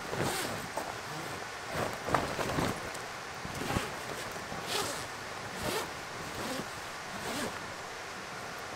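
A zipper being pulled in short strokes, about one a second, with canvas rustling, as a canvas extension wall is zipped onto an air-tent shelter.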